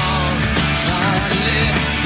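Rock music playing: a full band with drums and a melody line that bends up and down.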